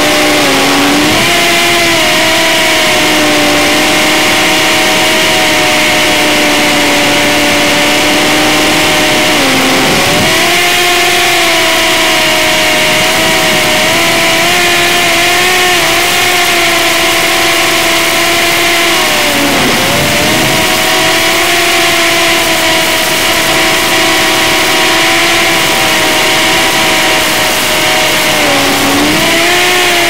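Brushed motors of a micro quadcopter whining steadily in flight over a constant hiss. The pitch dips briefly and climbs back three times, about a third of the way in, two-thirds of the way in and near the end, as the throttle eases and is opened again.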